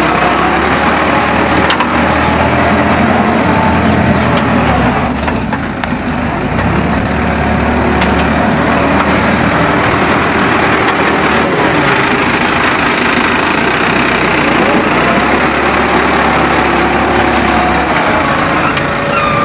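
Farm tractor's diesel engine running steadily while it works a front loader, its pitch rising and falling as the throttle changes.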